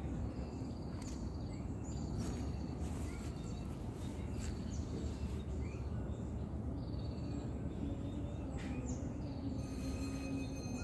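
Outdoor ambience of small birds chirping in short, repeated notes over a steady low background noise.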